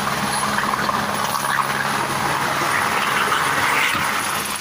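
Turbine helicopter taking off close by: a steady whir of main rotor and engine, a little louder about three seconds in as it tilts forward and climbs away.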